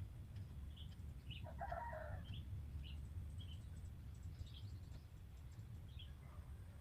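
A rooster crows once, briefly, about one and a half seconds in, while small birds chirp now and then over a steady low rumble.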